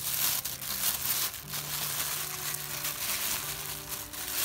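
A clear plastic packaging bag crinkling and crackling continuously as hands unwrap it.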